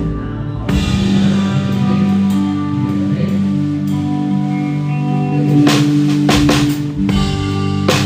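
Live band music: sustained chords held over a bass line, with a drum-kit hit at the start and a cluster of drum and cymbal strikes a little before the end.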